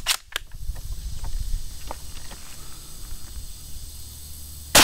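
Single rifle shot from a CZ 527 carbine firing 7.62x39 Silver Bear 125 gr soft-point ammunition, sharp and loud near the end, followed by its echo. Before it, two sharp clicks near the start and a few faint ones.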